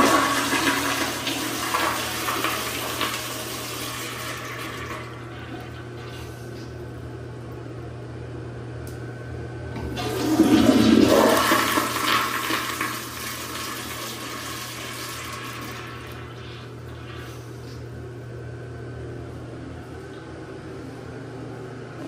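American Standard flushometer toilet flushing twice, each a loud rush of water. The first flush is rushing at the start and dies away over about five seconds; the second starts about ten seconds in and drains away by about sixteen seconds. A steady low hum runs underneath.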